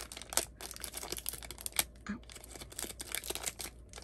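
Small clear plastic bag crinkling and crackling in the hands as it is handled and opened, in quick, irregular clicks.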